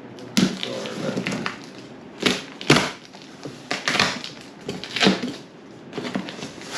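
A cardboard shipping box being cut open with scissors and its flaps pulled back. Scratchy cutting and rustling is broken by several sharp cardboard cracks and snaps.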